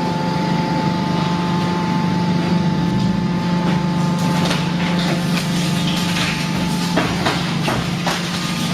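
YQD-2500 hydraulic car baler running: a steady hum from its hydraulic power unit, with a higher whine that stops about seven seconds in, and scattered metal clanks.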